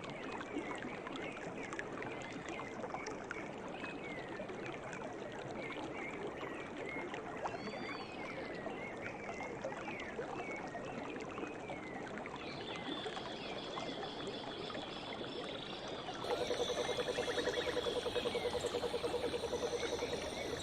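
Forest ambience: a steady rush of flowing water with many birds chirping. About twelve seconds in a high steady trill joins, and near the end a louder, low, rapidly pulsing call sounds for about four seconds.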